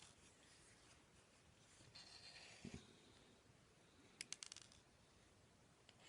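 Near silence broken by the faint scraping and clicking of small tools against the phone while a tiny screw is fitted. A soft scrape comes about two seconds in, and a quick run of light clicks follows about four seconds in.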